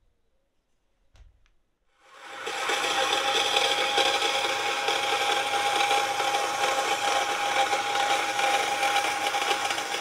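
A small electric power tool starts about two seconds in and runs steadily, a constant whine over a rough, noisy hiss.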